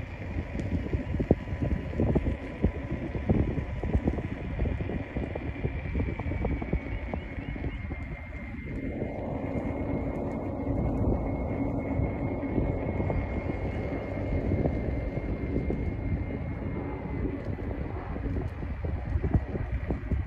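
Wind buffeting the microphone over the steady running noise of a vehicle being ridden along a road, with a faint high whine held throughout.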